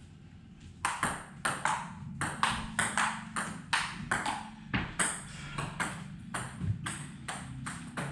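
Table tennis rally: the ball clicking back and forth off the paddles and a STIGA table, a quick run of sharp clicks at about three a second that starts about a second in.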